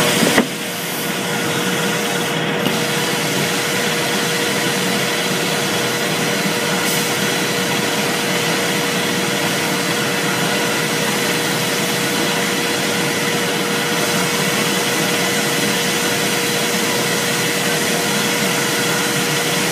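Guyson RB-RXS-400 robotic spindle-blast cabinet running: a steady rushing hiss of compressed-air abrasive blasting, with a steady mid-pitched hum under it.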